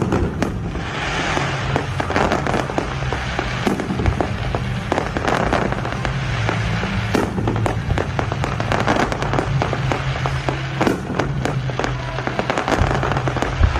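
Fireworks display going off: a rapid, continuous string of bangs and crackling bursts, with music playing underneath.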